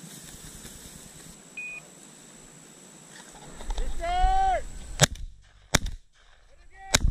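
Three shotgun shots fired at a pheasant: two under a second apart, then a third about a second later. A short call comes about a second before the first shot.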